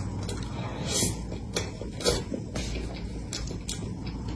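Eating soft cream cake with a metal spoon: close-up wet mouth sounds with several short, sharp clicks and clinks of the spoon.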